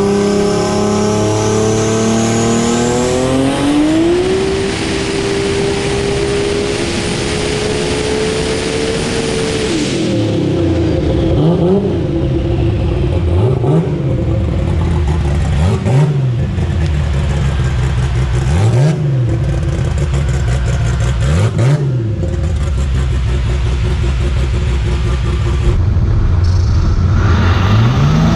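Big-turbo drag car engine running on a chassis dyno: it revs up over a few seconds with a thin turbo whistle rising alongside, then holds high revs. From about ten seconds in it is revved up and down in a series of blips, and it climbs again near the end.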